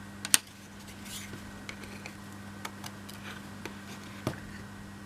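Laser-cut MDF model pieces being handled on a work surface: light taps and scrapes, a sharp click about a third of a second in, and a knock just after four seconds.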